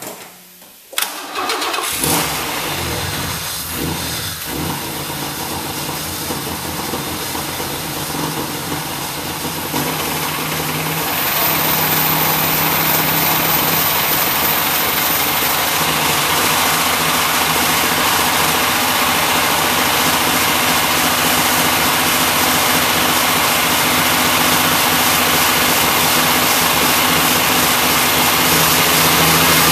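Chevrolet Cavalier Z24's 3.1-litre MPFI V6 cranks and fires about a second in, then runs steadily, getting louder around ten seconds in as it is revved and held at higher speed. The engine is already blown, which the owner takes for a wrist pin that let go, and it is being run hard to finish it off.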